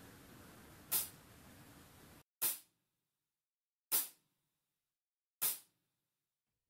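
Metronome clicking at 40 beats per minute: four short, sharp clicks a second and a half apart, counting in a play-along track. The first click sits over faint room tone, the rest over dead silence.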